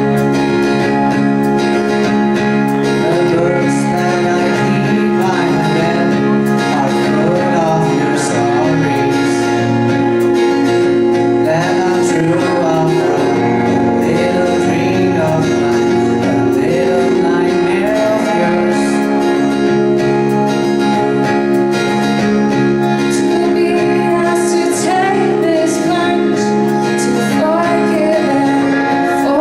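A band playing a song, with a voice singing a wavering melody over sustained guitar chords.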